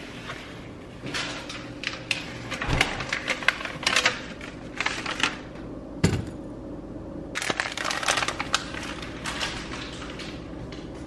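Crackly rustling and clicking of paper and plastic being handled at a kitchen counter, in clusters through most of the clip, with a couple of soft knocks; one comes about six seconds in as an avocado is set down in a wicker basket.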